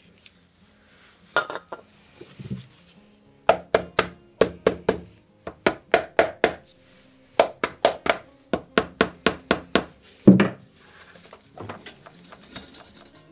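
Soft-blow hammer knocking on a stuck, corroded part of a motorcycle's rear end, in quick runs of sharp blows about three or four a second, the hardest blow near the end.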